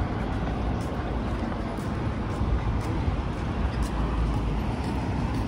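Steady city traffic noise: a continuous low rumble of vehicles with no single event standing out.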